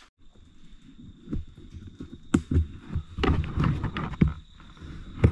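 Irregular thumps, scrapes and rustling of someone scrambling down rock and loose dirt, with a few sharp knocks, the sharpest about two seconds in and near the end. A faint steady high whine runs underneath.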